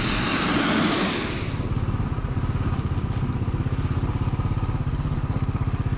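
A car passes with a brief rush of tyre hiss on the wet road in the first second and a half. Then a Royal Enfield's single-cylinder motorcycle engine runs with a steady, even beat while riding.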